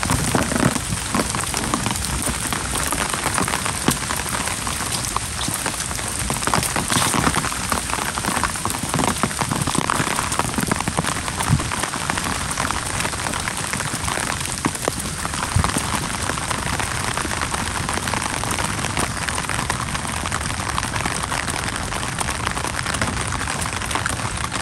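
Steady rain falling on wet pavement, with many scattered sharp drop ticks.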